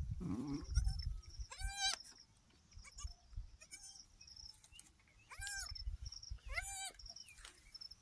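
Goats bleating: three clear, high, arching bleats about two, five and a half and nearly seven seconds in, with fainter calls between them. A low rumbling noise runs through the first two seconds.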